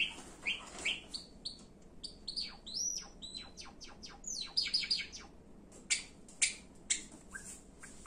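Java sparrow singing: a quick run of high chirps and whistled notes, some gliding up or down, ending in a few sharp, loud chips about one every half second.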